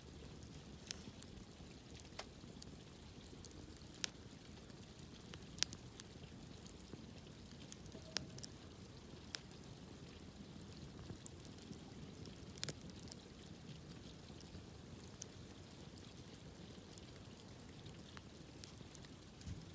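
Wood campfire burning with sparse, irregular sharp crackles and pops over a faint low hiss.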